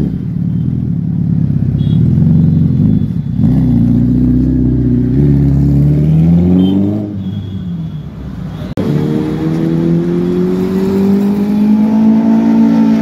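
Suzuki Hayabusa's inline-four engine rumbling at low revs, then pulling away with its pitch rising. About nine seconds in, a sudden break gives way to a motorcycle engine note that climbs steadily as it accelerates.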